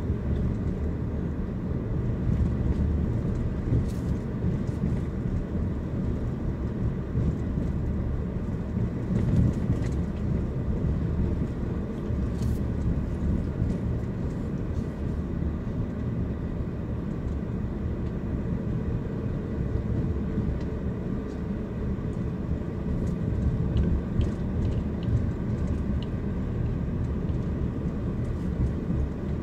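Car driving slowly, heard from inside the cabin: a steady low rumble of engine and tyre noise, with a few faint ticks.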